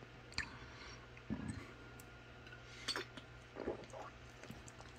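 A few faint, brief clicks and soft mouth sounds over a low steady hum, from someone tasting root beer from a glass bottle.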